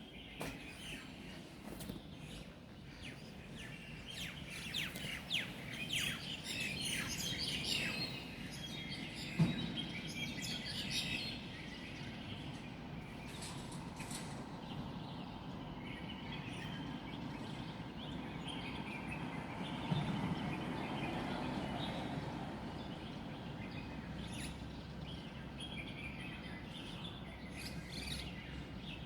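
Many wild birds chirping and calling at once in a dawn chorus, busiest in the first ten seconds and thinning later, over a steady low background rumble.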